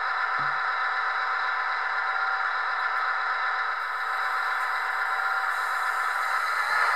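Simulated diesel engine idling steadily from the onboard sound unit of a radio-controlled scale Volvo A40D articulated dump truck. The sound is thin, with no bass.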